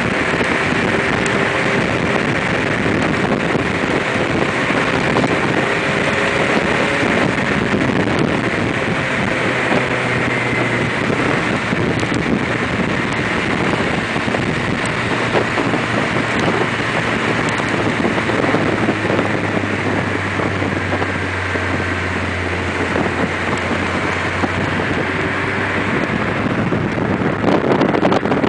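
Open-cockpit Ariel Atom driving at speed: a steady engine drone under heavy wind rush buffeting the microphone.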